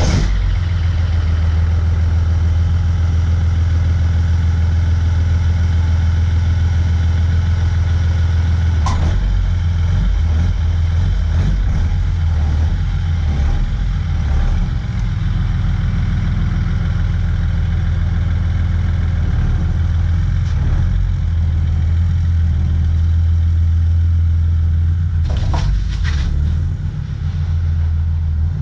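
BMW M57 3.0 straight-six turbodiesel with a GT2260V turbo idling steadily through a home-made exhaust manifold, just after starting, with a deep low drone. A few brief sharp clicks sound once about nine seconds in and again near the end.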